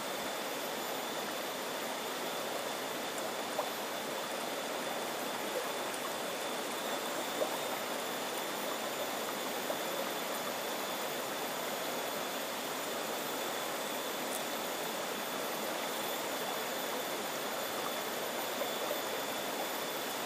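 Steady rushing of a flowing river, an even wash of water noise with a faint steady high whine over it and a few soft ticks.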